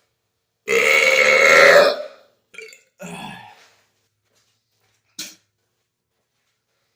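A man's long, loud burp lasting about a second and a half, releasing carbonation built up from drinking Sprite, then a couple of shorter, quieter throat sounds and a brief click.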